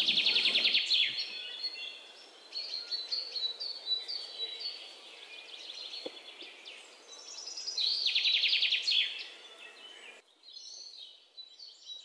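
Birds chirping, from a stock birdsong sound-effect recording: fast, loud trills in the first second and again about eight seconds in, with quieter chirps between.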